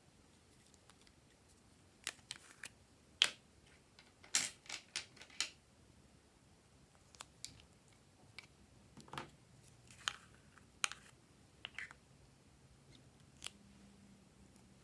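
Glossy slime being worked by hand, making irregular sharp clicks and pops in two bursts of several each, with a lone click near the end.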